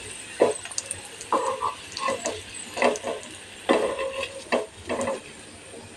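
A metal spatula scraping and knocking against a frying pan in a string of short strokes as papad rolls are turned onto their edges, over a faint sizzle of shallow-frying in a little oil on low heat.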